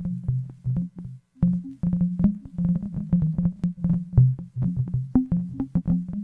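Modular synthesizer: a Ciat-Lonbarde Plumbutter played with tuned voltages from a Make Noise 0-Ctrl sequencer, processed through Cold Mac, Batumi and Clouds. It plays a fast, uneven stream of short low notes with clicky attacks, dropping out briefly about a second in.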